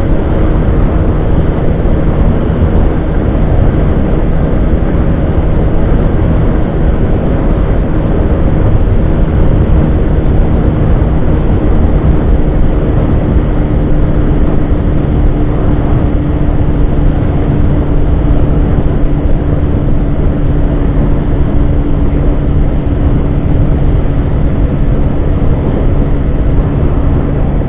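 Yamaha Factor 150's single-cylinder four-stroke engine held at high revs near its top speed of about 145 km/h, under heavy wind rush on the microphone. Its steady tone drops slightly from about halfway through as the bike slows.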